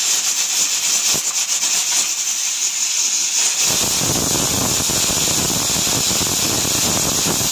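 Pressure cooker whistling: steam jets past the weighted valve in a loud, continuous high hiss, with a rougher low sputter joining about three and a half seconds in. The cooker has come up to pressure over the boiling dal.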